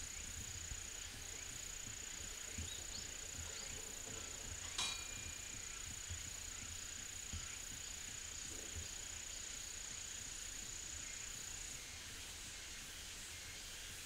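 Faint summer insect sound: one steady high-pitched buzz that stops about twelve seconds in, over a background insect chorus. A single sharp click comes about five seconds in.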